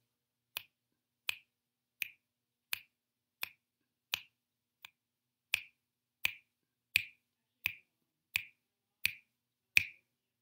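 Finger snaps keeping a steady beat: fourteen sharp snaps, evenly spaced a little under a second and a half per second, some louder than others.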